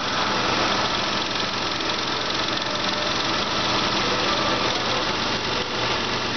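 2003 Chrysler Sebring's 3.0-litre 24-valve V6 idling steadily during a running test, with no revving.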